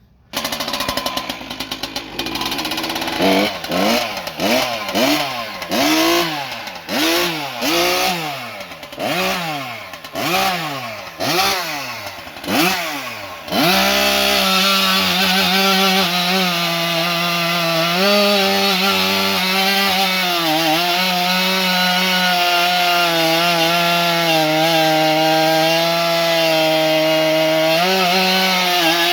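Two-stroke Farmertec 372XP (Husqvarna 372XP clone) chainsaw fitted with a CPI expansion-chamber exhaust pipe, being revved in about a dozen quick throttle blips, then held at a steady high pitch with slight dips, testing the pipe.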